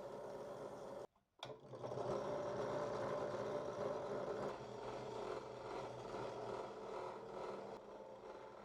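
Electric wire brush wheel running as it brushes rust off old blowtorch parts. A steady whir that cuts out for a moment about a second in and comes back louder.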